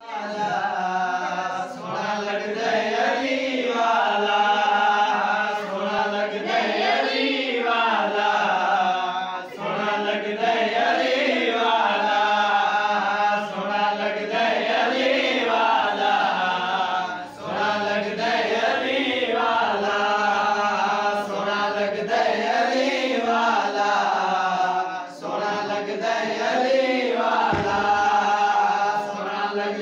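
Male voices chanting a qasida, a devotional Islamic poem, in long melodic phrases whose pitch rises and falls, with short breaks for breath about every eight seconds.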